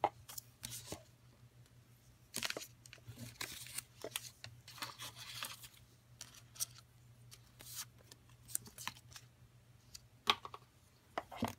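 Hands handling a USB charging cable, paper manuals and cardboard packaging: irregular short rustles, scrapes and clicks. A low steady hum runs underneath.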